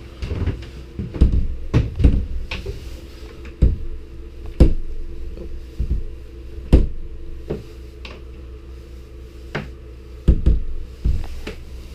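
Knocks and thumps of a wooden cabin door being pushed and banged against its frame, again and again, because it won't shut, over a steady low hum.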